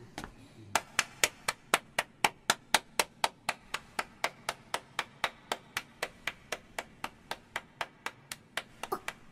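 One person clapping alone at a steady pace, about four claps a second, as a vote by applause. Near the end a few extra claps fall between the beats, as if a second pair of hands joins.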